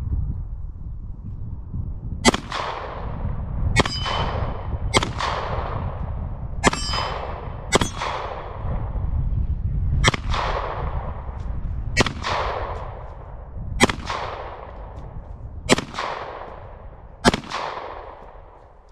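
Canik SFX Rival 9mm pistol firing ten aimed shots, about one to two seconds apart, each a sharp crack with a trailing echo, emptying a ten-round magazine. A few of the hits ring a steel target.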